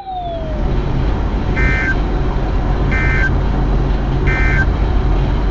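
Steady road rumble inside a moving car, with three short electronic beeps about a second and a half apart.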